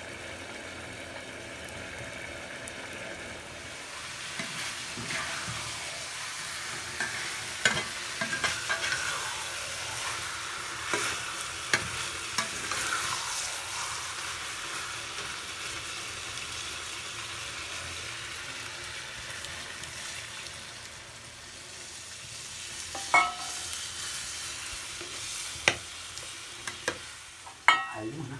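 Chicken curry frying in a pan, sizzling steadily while it is stirred. The sizzle grows louder about four seconds in, and sharp clinks of the stirring spoon against the pan come now and then, several near the end.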